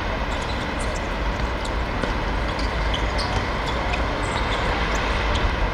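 Steady outdoor rumble with faint, scattered clicks.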